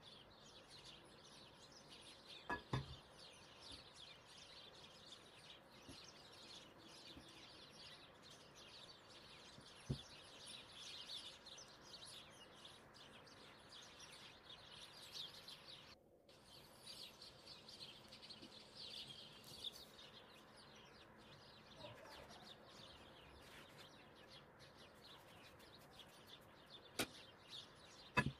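Faint bird chirping in the background, with a few short knocks, one of the loudest about three seconds in and two more near the end.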